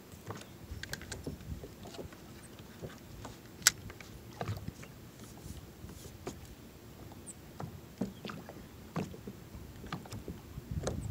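Scattered light clicks and knocks of fishing gear being handled in a kayak while a line is re-rigged, with one sharper click a little under four seconds in, over a soft low rumble.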